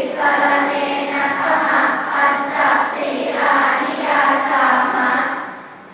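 A large group of children chanting together in unison, in short repeated phrases with brief breaks, fading out near the end.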